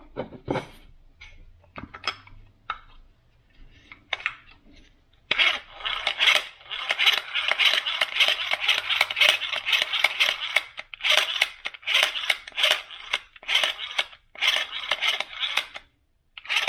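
Scattered clicks and knocks from hands working on a throttle body, then, about five seconds in, runs of rapid ratchet-like clicking, each lasting a second or two with short breaks.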